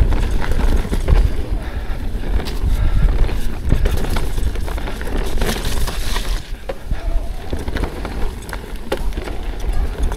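Propain Ekano 2 mountain bike descending a rocky trail: tyres rolling over rock and dirt, with rattling clicks and knocks from the chain and frame over bumps, under a steady wind rumble on the action camera's microphone. A burst of hiss comes a little after halfway.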